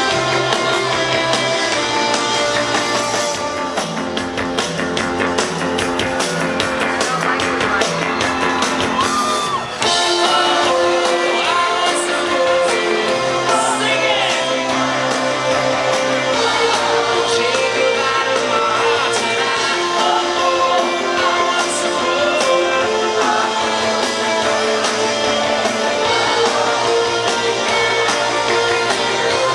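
Live pop-rock band playing loudly, with electric guitar, bass, drums and a sung lead vocal, the sound of a large venue around it.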